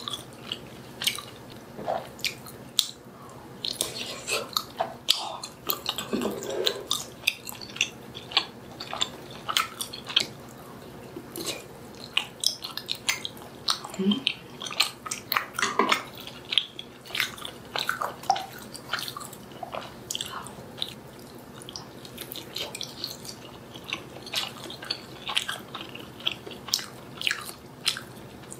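Close-miked eating: continuous chewing and biting, with many short, wet clicks and smacks.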